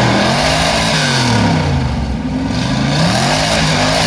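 A 1965 Mercury Comet's small-block Ford V8, running through mufflers, is revved hard twice in neutral. The pitch climbs quickly and then falls back each time.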